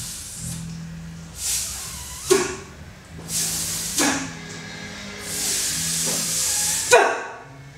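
A woman's voice performing a sound poem in long breathy hisses, 'sss' and 'shh', four or five in a row. Each is cut off by a short, sharp vocal syllable, the loudest near the end.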